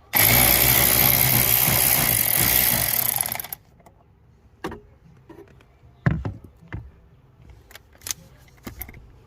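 Cordless power tool running for about three and a half seconds, starting and stopping abruptly, as it works a bolt holding the blower motor resistor. A few clicks and knocks from handling tools and parts follow.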